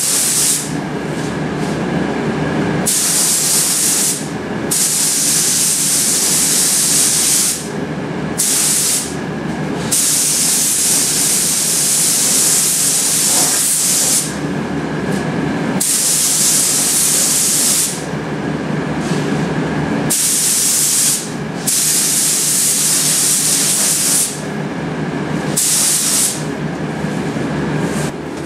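Compressed-air paint spray gun hissing as paint is sprayed, in repeated trigger pulls of one to several seconds each with short breaks between.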